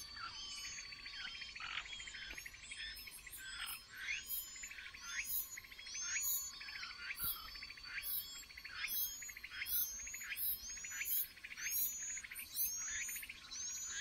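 Chinese hwamei nestlings begging at the nest with rapid, repeated high squeaky chirps, two or three a second, as the adult feeds them. A faint steady hum runs underneath.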